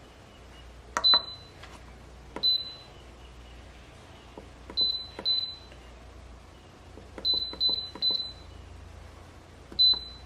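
Buttons pressed on a kitchen appliance's keypad, eight presses. Each press gives a click and a short high beep, some coming singly and some two or three in quick succession.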